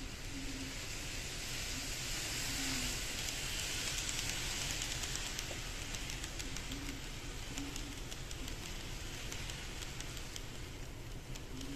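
KATO N-gauge 500 series Shinkansen model train running along its track: a light hissing whir from the motor and wheels that swells a few seconds in as the train comes near, with a light ticking of small clicks through the second half.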